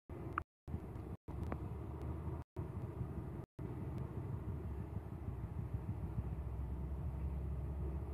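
Low, steady rumbling background noise with no clear pitch, cut by several brief dropouts to silence in the first few seconds.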